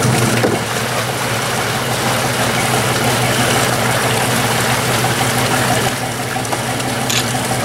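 Boat engine idling with a steady low hum, over a wash of water noise.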